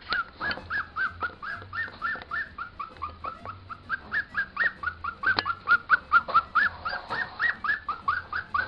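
Papillon puppy whimpering in an even series of short, high cries, about four a second.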